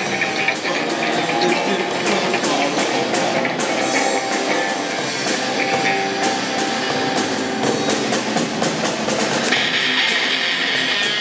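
Live rock band playing: electric guitars through amplifiers over a drum kit with a steady beat.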